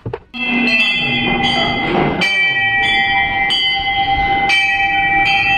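Temple bell rung over and over, about three strikes every two seconds, each strike ringing with several high tones over a steady lower ring that carries through. It starts suddenly just after the start.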